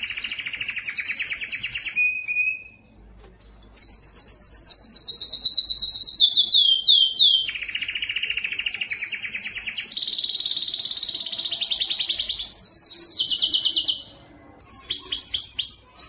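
Belgian canary singing a string of fast, even trills, each held for a second or two at one pitch before jumping to another, some sliding downward. There are two short breaks, near three seconds in and a little before the end.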